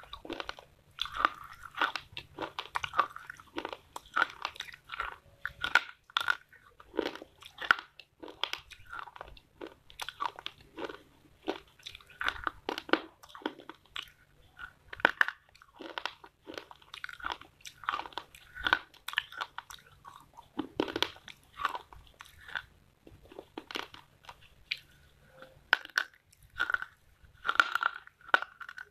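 Close-up crunching and chewing of hard, chalky pieces of dry clay and slate: sharp, irregular crunches several times a second, broken by short pauses between bites.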